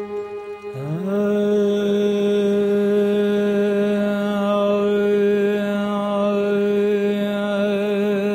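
A singer's voice slides up about a second in and holds one long sung note, the start of a Persian-language vocal; the pitch begins to waver near the end.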